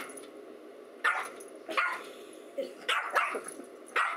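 Yorkshire terrier barking at its own reflection in a mirror: about six short, sharp barks in a row, one every half second to second.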